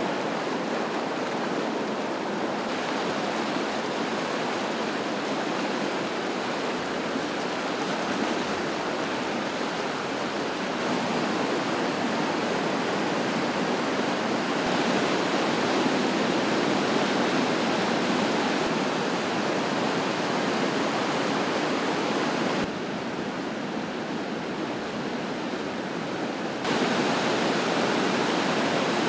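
Floodwater of a rain-swollen river rushing and churning through rapids: a steady rush of water, its level and tone changing abruptly several times.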